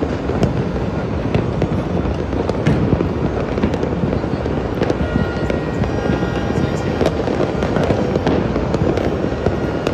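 Many fireworks and firecrackers going off at once: a dense, continuous crackling with irregular sharper bangs standing out.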